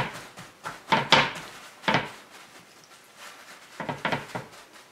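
Paper towel patting raw salmon fillets dry against a wooden cutting board: several soft, irregular dabbing thumps with a papery rustle.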